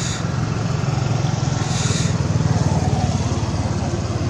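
Steady low rumble of an engine running, with two brief high hissing sounds, one at the start and one about two seconds in.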